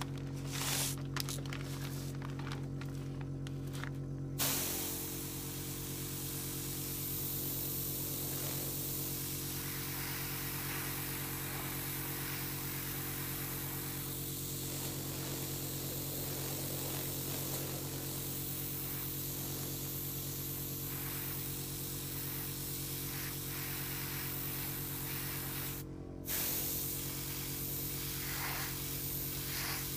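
Airbrush spraying thinned flat black paint to pre-shade the panel lines: short bursts of air for the first few seconds, then a long steady hiss that breaks off briefly near the end and starts again. A steady low hum runs underneath.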